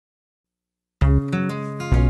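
Silence, then background music starts suddenly about a second in: guitar over a deep bass.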